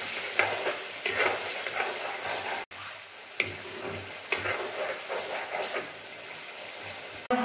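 Eel curry sizzling in a black kadai while a metal spatula stirs and scrapes the pan, about once a second. The sound breaks off for an instant about a third of the way in.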